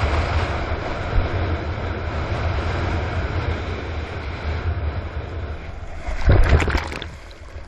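Water rushing past a surfboard-mounted camera as the board moves through the surf, with wind buffeting the microphone in a low rumble. About six seconds in, a loud splash as water washes over the board and camera, then it quietens.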